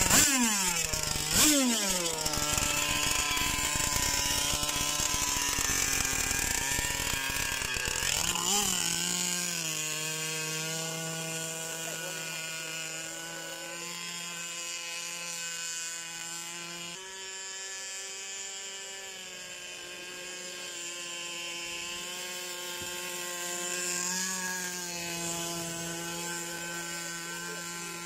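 A small petrol engine of the chainsaw or brush-cutter kind, on a remote-control powerboat: it is revved hard twice and falls back each time, blipped again, then runs at a steady speed with small shifts in pitch as the throttle changes.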